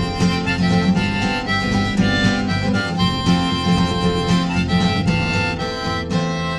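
Background music: a harmonica melody over guitar.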